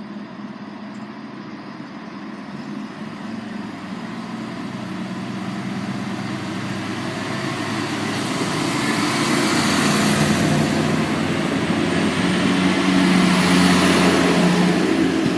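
A regional train running into the station, its noise and low drone slowly growing louder as it approaches and easing slightly near the end.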